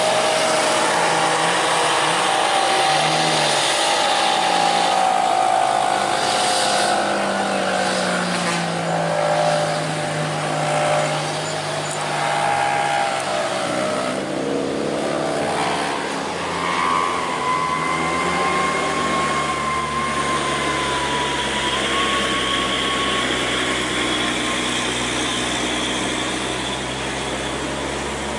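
Heavy cargo truck's diesel engine labouring up a steep climb. The engine note rises and falls as it pulls and shifts, with a deep dip and recovery in pitch about halfway through, then settles into a steadier, higher drone.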